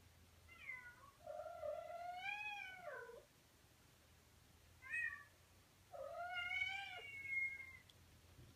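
Cat meowing: a long drawn-out meow that rises and falls about a second in, a short chirp midway, and another long meow near the end.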